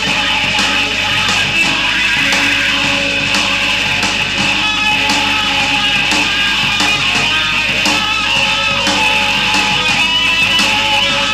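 Rock band playing loud, with electric guitar over a steady drum beat.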